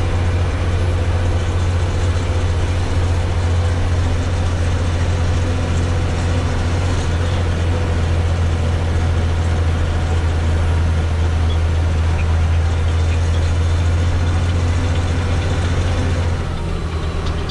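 Heavy truck's diesel engine heard from inside the cab, running steadily in a deep, even drone as the truck climbs a hill road; the engine note eases slightly near the end.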